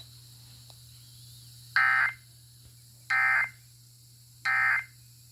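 Three short bursts of Emergency Alert System SAME digital data tones, each about a third of a second long and spaced about 1.3 seconds apart: the end-of-message code that closes the alert.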